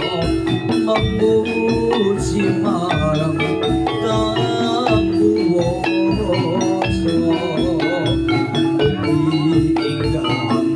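Javanese gamelan music for a jathilan horse dance, played live through a loud sound system: bronze metallophones striking a dense run of ringing notes over a steady pulse of hand-drum strokes.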